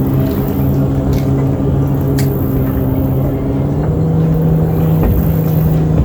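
An engine running steadily with a low hum, its pitch stepping up about four seconds in.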